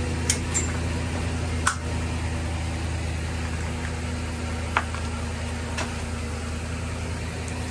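A vehicle engine idling steadily, with a few short, sharp clicks and knocks over it.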